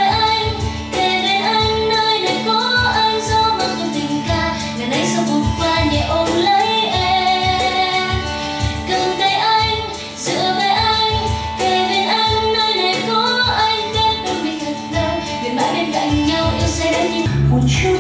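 A pop song with a female lead vocal over drums and a pulsing bass line, played back through a Harman Kardon Allure speaker for a sound test.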